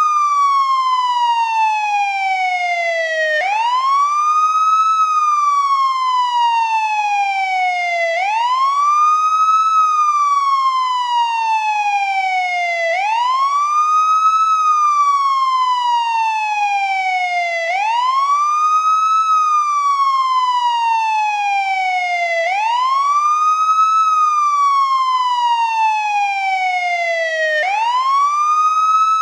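Police siren on its wail tone, loud and steady: the pitch rises over about a second, then falls slowly over about three seconds before snapping back up. The cycle repeats about every five seconds, six times over.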